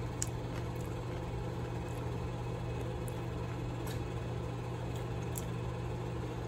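Steady low mechanical hum, with a few faint soft clicks of a mouth chewing a piece of marinated carrot.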